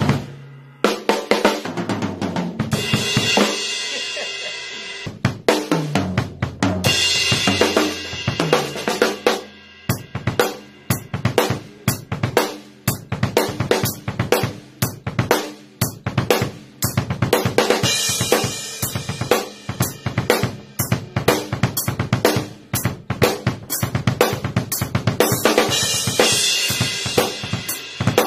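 Drum kit played solo: fast, dense snare and kick drum strokes with cymbal crashes that ring out several times, a brief break about ten seconds in, then rapid strokes running on.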